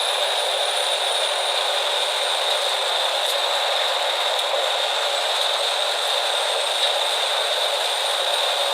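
Morbark HT1684 Predator stump shredder running steadily: an even mechanical noise with a high hum and a faint whistle that slowly falls in pitch, with no deep bass.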